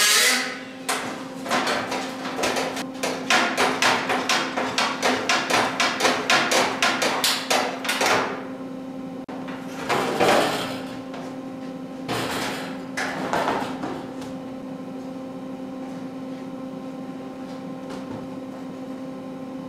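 A hammer rapidly striking a rusty sheet-steel truck inner fender, starting with a loud ringing clang and then about three to four sharp metallic blows a second for several seconds. The loose panel then rattles twice as it is lifted and turned. A steady electrical hum runs underneath.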